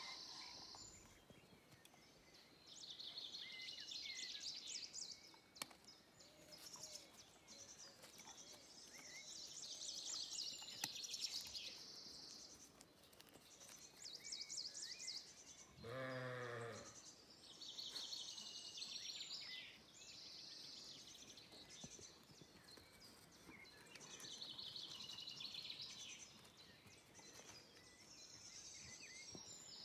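Songbirds twittering and trilling on and off throughout, with a single sheep bleat about halfway through, lasting about a second.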